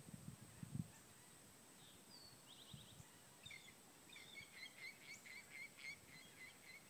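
Faint bird song: a run of short, evenly repeated high chirps, beginning about three and a half seconds in, over quiet outdoor hiss. A few soft low thumps come in the first second.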